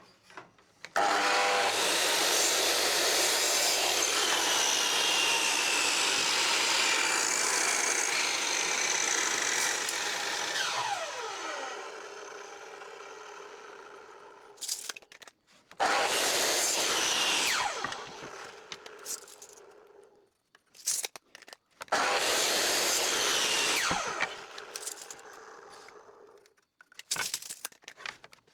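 Electric saw cutting timber trim three times: one long cut, then two shorter ones. After each cut the blade winds down with a falling whine.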